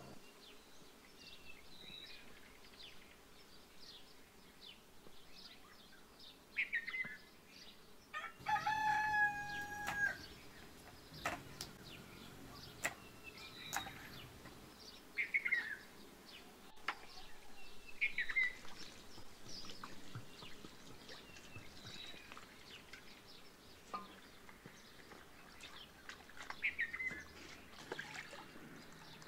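A rooster crows once, about eight seconds in, over scattered chirps of small birds. A few sharp knocks are heard now and then.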